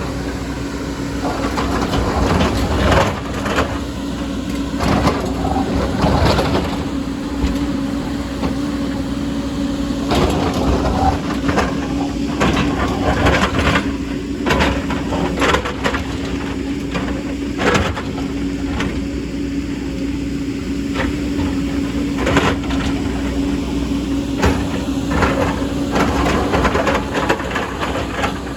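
Excavator's diesel engine running steadily under a string of irregular knocks, cracks and crunches as its bucket digs and scrapes through rock and soil.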